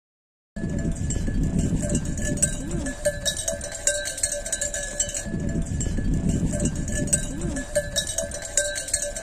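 Livestock bells on a grazing sheep flock, clanking and ringing continuously over a low rumble, starting about half a second in.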